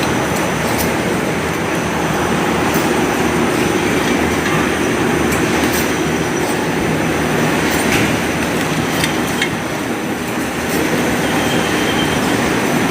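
Three-side-seal packaging machine running: a steady dense mechanical clatter with a constant high whine and occasional sharp clicks.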